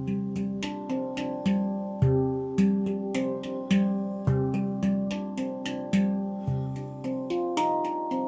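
Instrumental music: a steady run of plucked notes, two or three a second, each ringing and fading, over held lower notes.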